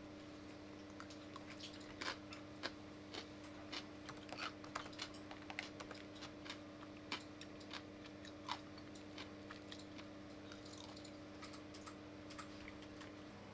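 Eating at the table: chopsticks clicking and tapping against a ceramic plate as food is picked up, with chewing, most busily in the first half and thinning out later. A steady low electrical hum runs underneath.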